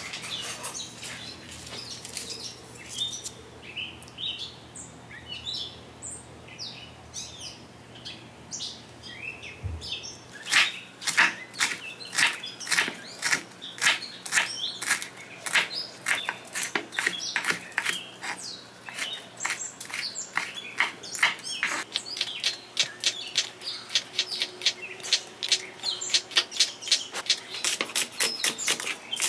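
For about the first ten seconds, faint scattered high chirps like small birds over a low hum. Then a kitchen knife chopping a hot green chili pepper and then a scallion on a wooden cutting board, steady sharp chops about two a second.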